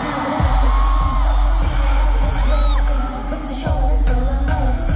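Live pop/hip-hop song played through a concert sound system, with a heavy bass beat and sung vocals.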